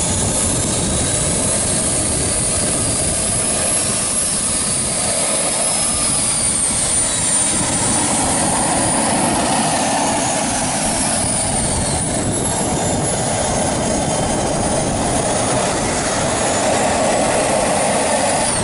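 Small model jet turbine engine running steadily: a loud, even rush with a high whine that drifts slightly up and down in pitch.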